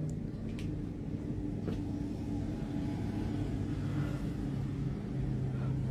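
Steady low hum and rumble with a few faint clicks.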